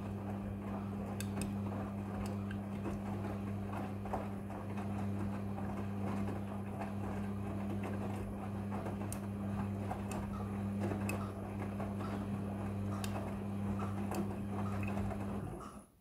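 Front-loading washing machine tumbling a load of wet clothes in the wash: a steady motor hum with the swish and soft knocks of laundry falling in the drum. Near the end it stops suddenly as the drum pauses between tumbling turns.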